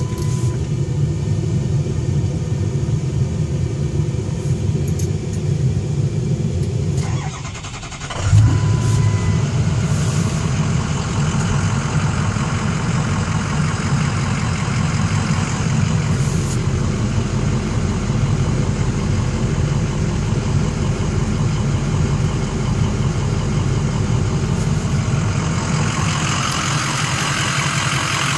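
Ford 6.0 Power Stroke V8 turbodiesel of a 2004 F-450 Super Duty starting and running at idle, heard from inside the cab. About seven seconds in the sound sags briefly, then jumps back louder about eight seconds in and settles into a steady idle.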